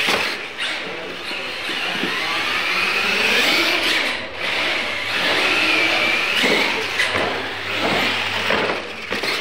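Losi LMT radio-controlled monster trucks racing: their brushless electric motors whine, the pitch rising and falling with the throttle.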